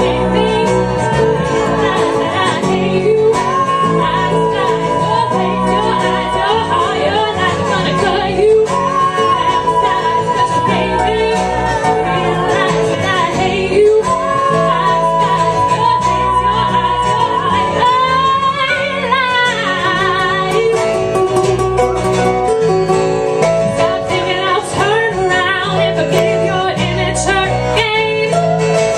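Live band playing a song: a woman's lead vocal with long held notes and a second woman's harmony vocal, over strummed acoustic guitar, electric guitar and bass.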